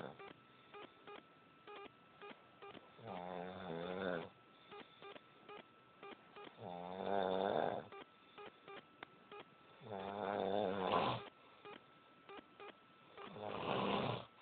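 A person snoring: four long, pitched, rasping snores, one every three seconds or so, with faint regular clicks between them.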